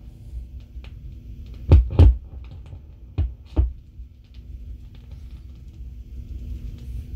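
Gates CB-500 transcription turntable running through the silent groove between jingle cuts on a 16-inch 33 rpm record: a steady low hum and rumble, broken by four dull thumps in two pairs about two and three and a half seconds in.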